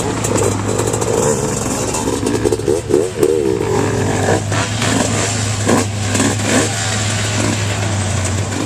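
Off-road 4x4 truck engine running under load and revving up and down, with several knocks and clunks of the truck jolting over rough ground about halfway through. The steady engine drone drops away near the end.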